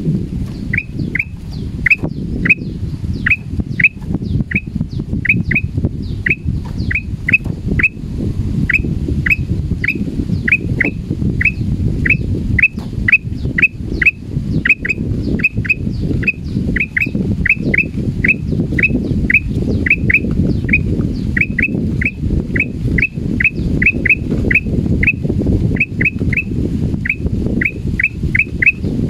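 Male black-crested bulbul calling in an unbroken series of short, sharp falling notes, about two a second, the calls of a frightened bird. A loud low rumble runs underneath.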